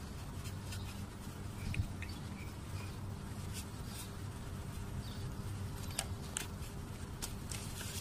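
Scattered light clicks and scrapes of hands handling a car's distributor and its ignition wiring, over a steady low hum.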